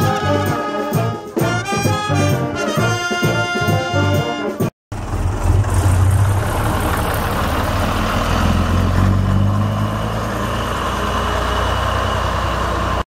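Brass band music with trombone and trumpet for the first five seconds or so. It cuts off abruptly, and a steady low rumbling noise follows.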